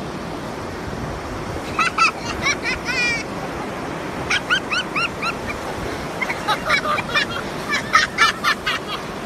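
A beagle giving repeated short, high yips and whines at a crab, in quick bunches about two, four and six to nine seconds in, over the steady wash of surf on the beach.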